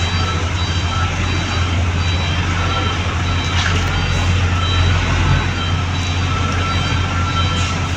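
Heavy road-building machine's diesel engine running steadily, with a backup alarm beeping in short repeated tones over it.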